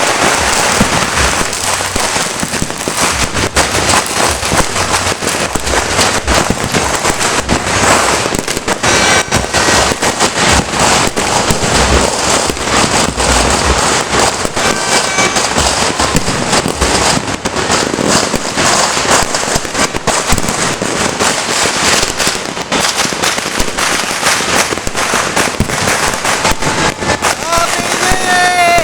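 Many firecrackers and fireworks going off at once, a dense, unbroken crackle of pops and bangs with no let-up.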